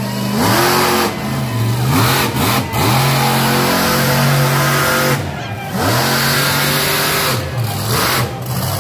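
Monster truck engine, loud, revving up and down repeatedly as the throttle is blipped and released several times.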